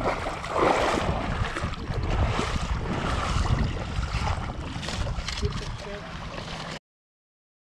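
Water splashing and sloshing as a small hooked bass is pulled from the shallows onto a gravel bank, over a low wind rumble on the action-camera microphone. The sound cuts off to dead silence near the end.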